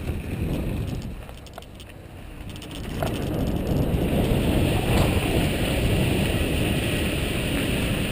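Wind rushing over the microphone and a Santa Cruz Tallboy LT mountain bike's tyres rolling on a dirt trail. The noise drops about a second in, then grows louder about three seconds in as the bike rolls into a corrugated metal culvert.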